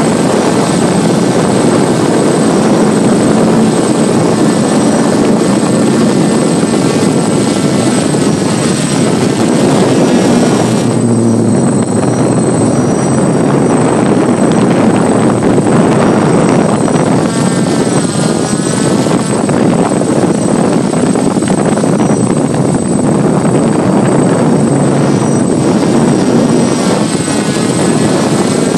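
Hexacopter's electric motors and propellers buzzing steadily in flight, heard close up from the craft itself, the pitch wavering slightly now and then.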